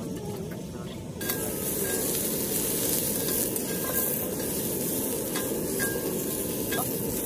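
Asparagus and whole garlic cloves sizzling as they are stir-fried in a hot pan, with a few light clicks as they are stirred. The sizzle starts abruptly about a second in and then holds steady.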